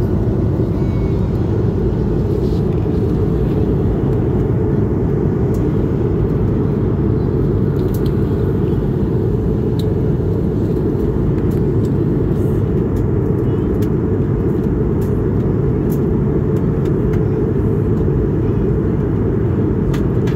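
Steady low rumble of an Airbus A220-300 in flight, heard inside the cabin from a rear window seat: the Pratt & Whitney PW1000G-family geared turbofans and the rush of air along the fuselage. It holds an even level throughout, with a few faint ticks over the top.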